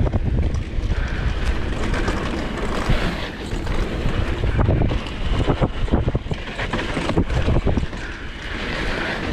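Wind buffeting the microphone of a riding camera over the rattle and knock of a Polygon XquareOne DH9 downhill mountain bike rolling fast over a wet dirt trail, with many short knocks from the bike and tyres hitting bumps.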